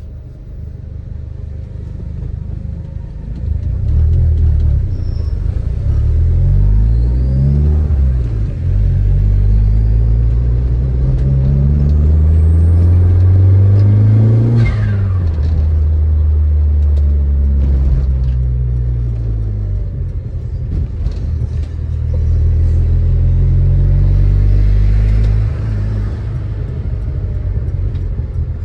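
Turbocharged Audi 1.8T 20-valve four-cylinder with a 3-inch stainless exhaust, driven hard: the revs climb and fall several times through the gear changes.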